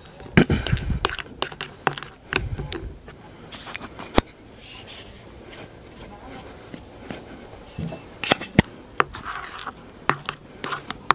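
A metal fork scraping and clinking against a small stainless steel bowl as softened butter is mashed and mixed with spice, with scattered sharp clicks; two stand out at about four and eight and a half seconds.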